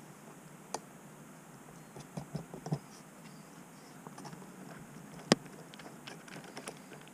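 Small clicks and taps of hands fitting nuts onto the plastic-and-metal steering linkage of a 1/14 scale model truck's front axle, with a metal nut driver set on a nut. The taps come scattered, with a cluster a couple of seconds in and one sharp click about five seconds in, the loudest.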